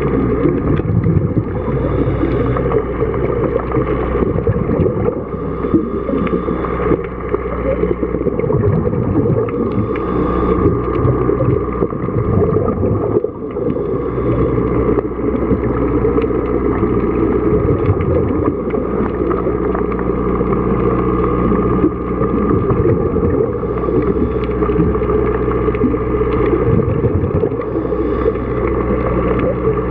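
A boat's engine running, heard underwater: a steady drone with several constant tones.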